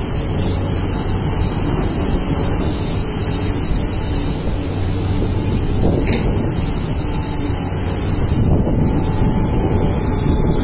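Kobelco SK380HD hydraulic excavator's diesel engine running steadily with a low hum as the machine digs into the rock face and swings its loaded bucket. A single sharp knock about six seconds in.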